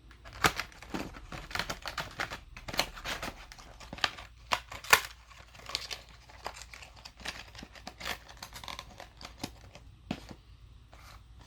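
Packaging being handled as a model airplane is put back into its box: a run of crinkling and rustling with sharp clicks and scrapes, the loudest about five seconds in.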